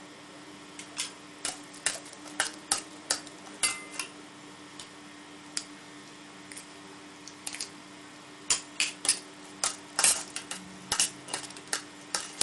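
A spoon clinking and scraping against a bowl as sliced grilled pork is tossed with its seasonings. The irregular clicks start about a second in, thin out in the middle, and come thick again near the end.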